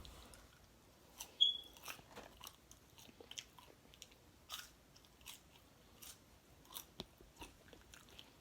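A person chewing and biting food close to the microphone, with scattered short wet clicks and smacks every half second or so. A brief high squeak about a second and a half in is the loudest sound.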